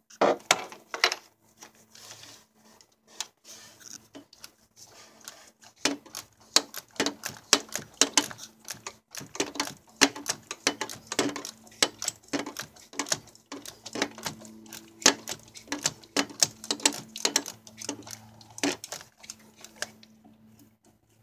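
Ratchet with a 32 mm socket clicking in runs of short strokes as it tightens the oil filter housing cap. A faint steady hum runs underneath.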